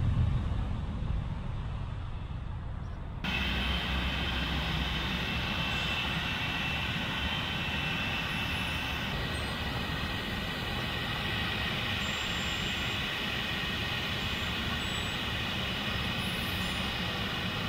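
Boeing 737 jet engines (CFM56 turbofans) running at low power as the airliner taxis: a steady rumble with a high whine on top. A lower jet rumble cuts off abruptly about three seconds in.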